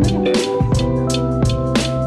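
Background music with a steady beat, about three drum strokes a second over held bass and chords.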